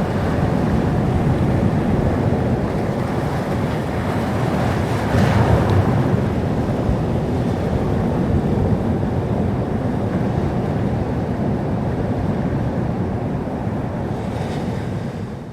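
Sea surf: a continuous wash of waves breaking on a shore, with one wave breaking louder about five seconds in.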